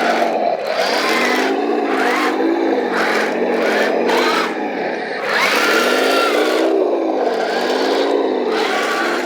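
Heng Long Panzer IV F RC tank running on a function test: its small electric motors and gearbox whir steadily, the pitch rising and falling again and again as the throttle is worked.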